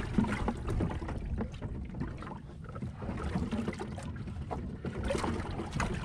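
Wind rumbling on the microphone and water lapping at a small boat, with scattered irregular knocks and rattles of handling on the boat deck, a busier patch about five seconds in.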